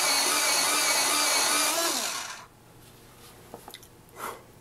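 Electric pencil sharpener grinding down a wooden pencil, its motor whining steadily; the whine drops and the grinding stops about two seconds in, followed by a few faint clicks.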